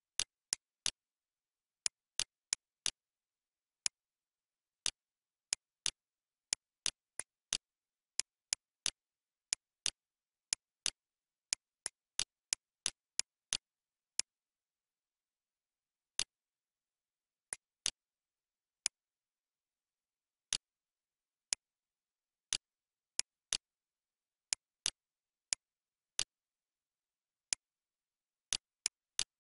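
Computer mouse clicking: short sharp clicks at an irregular pace of one or two a second, some in quick pairs, with dead silence between them and a pause of about two seconds near the middle.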